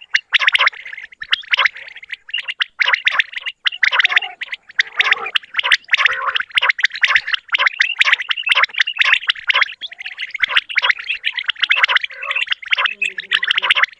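Many common quails calling at once: a dense, continuous chorus of rapid, bubbling, overlapping calls. Near the end a low steady tone joins in briefly.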